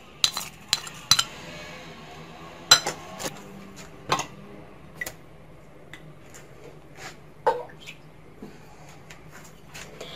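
Scattered clinks and taps of a glass bowl and a small saucepan being handled and set down, several sharp ones in the first few seconds and fewer, fainter ones after.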